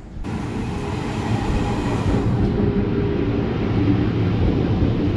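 Electric commuter train running past at close range along a station platform: a loud, steady rumble of wheels and motors.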